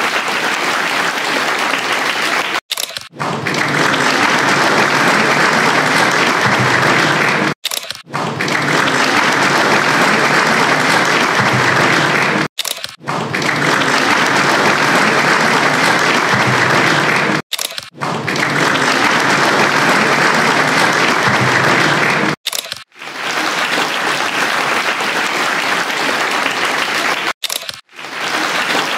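Steady applause that breaks off for a moment about every five seconds, as if the same stretch of clapping were repeated.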